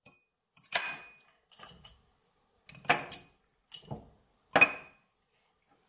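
Large ice balls placed with metal tongs into a cut-crystal highball glass: a series of about six sharp clinks of ice and tongs on glass, several followed by a brief ringing of the glass, the loudest about three and four and a half seconds in.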